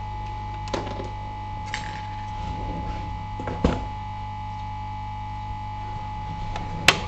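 Steady electrical hum from workbench equipment, with a few light clicks and taps of small tools on the board. The sharpest tap comes near the end.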